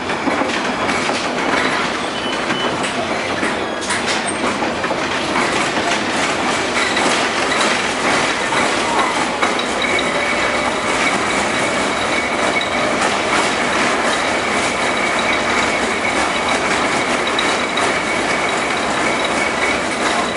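LM-68M tram running along the line, its wheels clattering on the rails with scattered clicks and knocks. From about seven seconds in, a faint steady high whine joins the running noise.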